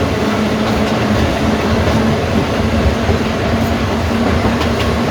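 Manx Electric Railway tramcar running along the track: a steady rumble with a constant hum and a few clicks of the wheels over rail joints in the second half.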